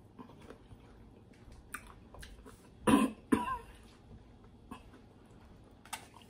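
A person eating, with faint chewing and mouth clicks, broken about three seconds in by two quick coughs close together.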